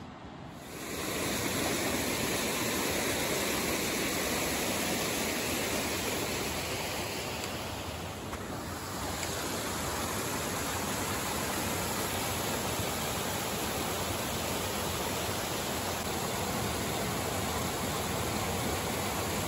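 Mountain creek rushing and cascading over rocks close by, a steady wash of water that starts abruptly about a second in.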